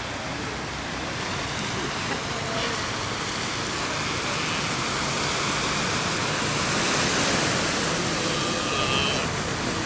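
Ocean surf washing on a sandy beach: a steady rush that swells about seven seconds in.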